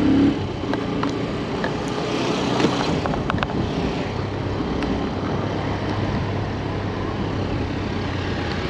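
A motor vehicle's engine running steadily under a haze of road noise. A stronger engine note drops away just after the start, and a few light clicks come about two to three and a half seconds in.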